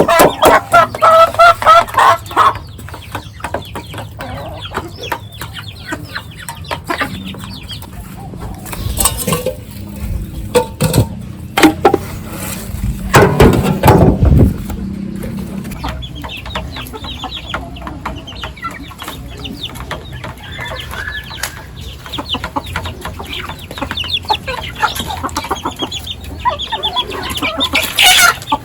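Chickens clucking, with rapid repeated calls at the start and a busy, continuous clucking from about halfway on. A few sharp knocks and a louder noisy burst come just before the middle.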